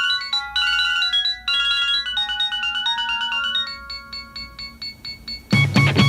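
Nokia 6600 ringtone melody played as clean, electronic-sounding notes. About five and a half seconds in, a loud heavy metal band arrangement of it crashes in.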